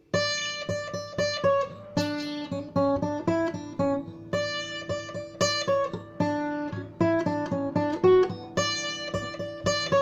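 Instrumental music on a plucked guitar, with single notes picked in a repeating arpeggiated pattern and each note left to ring. It begins suddenly.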